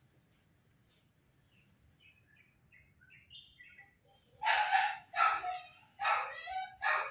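A dog barking four times, about one bark a second, starting a little past halfway, with faint bird chirps before it.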